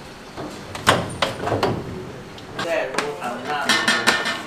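A metal drawer of a stainless steel rice noodle roll steamer is slid out with several sharp knocks and clunks. From a little past halfway, a steel scraper clatters and scrapes across the metal steaming tray as the rice sheet is rolled off.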